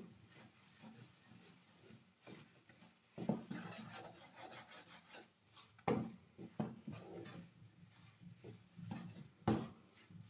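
Wooden spoon scraping and stirring crumbly homemade khoya around a pan, a dry rubbing scrape with three louder knocks of the spoon about three seconds apart. The khoya has started to bind together and is ready to use.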